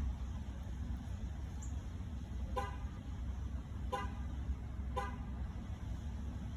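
Three short pitched honks, a little over a second apart, over a steady low rumble of outdoor background noise.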